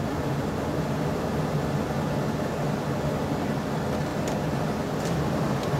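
Steady low mechanical hum and hiss with a few faint, light clicks near the end as a small plastic vacuum T-fitting is handled.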